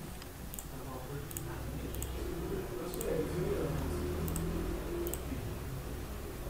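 Computer mouse clicking, about six single sharp clicks spaced a second or so apart as entries are chosen from drop-down menus, over a steady low background hum.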